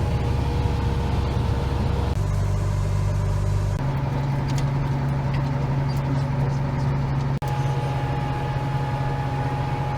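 A vehicle engine running steadily on the road, a low drone whose pitch shifts abruptly about two and four seconds in and cuts out for an instant about seven seconds in.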